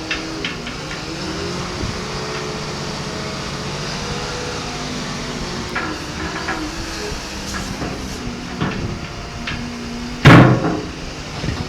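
Komatsu WA270 wheel loader running, its engine note shifting up and down in pitch, with scattered knocks and one loud bang about ten seconds in.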